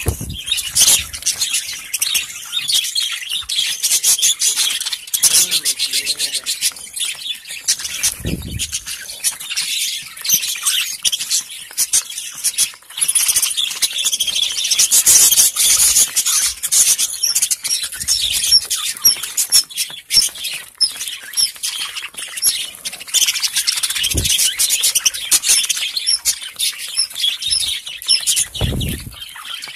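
A flock of budgerigars chattering and chirping continuously, many birds at once in a dense, high-pitched warble. A few dull low thumps break in now and then.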